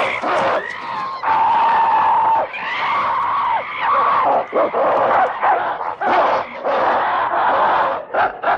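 A group of chimpanzees screaming and calling at once, many overlapping shrieks that rise and fall, with one long held call about a second in.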